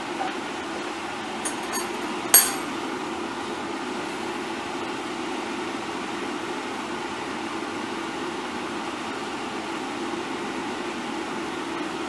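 Steady background hum, with three short clinks of crockery in the first few seconds, the third the loudest.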